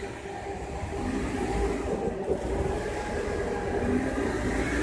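City street traffic: cars passing on the road, a low rumble with tyre noise that slowly builds.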